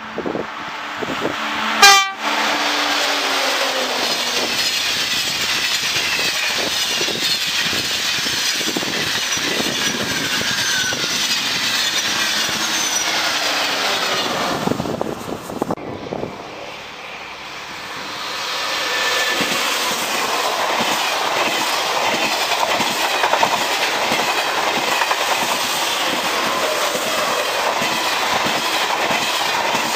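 Train horn sounding briefly about two seconds in, followed by a train passing at speed with a steady rolling noise of wheels on rail. The noise dies down past the halfway point, then the rolling noise of a passing train builds again and runs on.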